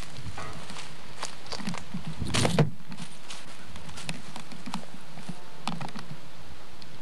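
Footsteps and rustling of someone walking along a leafy woodland path with a handheld camcorder, scattered small crunches and knocks, with one louder brushing rustle about two and a half seconds in. A steady hiss lies underneath.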